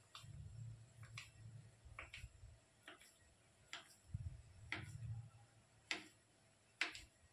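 Faint, light clicks about once a second, getting louder toward the end, with soft handling rumble: the rolled chhena log being cut into small pieces on a plate.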